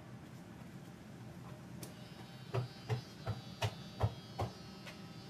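Electric hair clippers running with a steady low buzz. Around the middle come about six short, louder strokes, a little under half a second apart, as the blades are worked through the hair.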